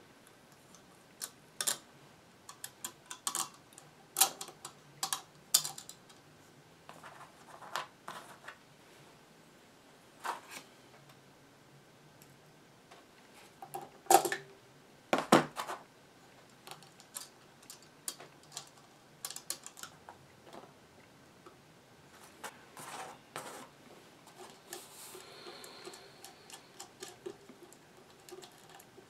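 Scattered small metallic clicks and taps as bus wire and needle-nose pliers are worked on a vacuum-tube radio's socket board, with two louder clacks about halfway through.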